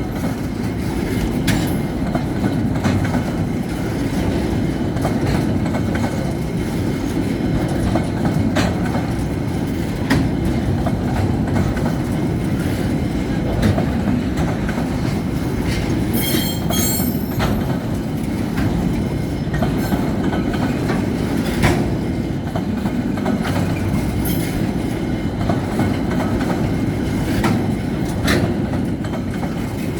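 Belgrano Cargas freight train rolling past: a steady low rumble of the wagons with irregular clicks of wheels over the rail joints, and a brief high wheel squeal about halfway through.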